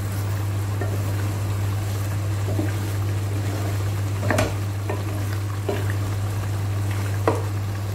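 Thick tomato-paste sauce with chicken pieces bubbling in a pot over high heat while a wooden spoon stirs it, reducing it to a thick, sticky consistency. The spoon knocks against the pot a few times, most sharply about four seconds in and near the end, over a steady low hum.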